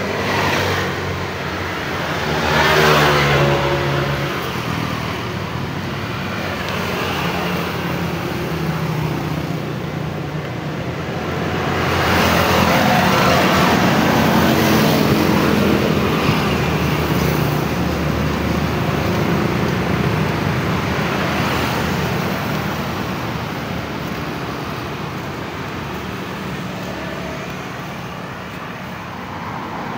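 Road traffic: a steady hum of vehicles, with two louder passes that swell and fade, one a few seconds in and a longer one around the middle.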